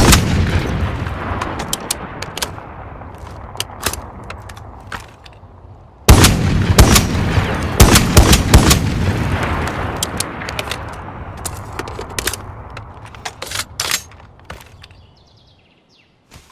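Barrett M82A3 semi-automatic .50 BMG rifle firing: a single shot with a long rolling echo, then about six seconds later a quick string of about five shots whose echo slowly fades away.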